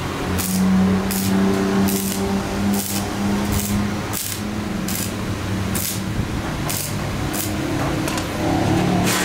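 Stick (arc) welding on a square steel-tube frame: a continuous crackling hiss from the electrode arc, broken by frequent sharp pops, over a steady low hum.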